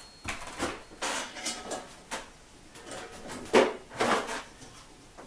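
Irregular clinks and knocks of hand tools on the trike's metal parts as a pulley is worked loose, with two louder knocks about three and a half and four seconds in.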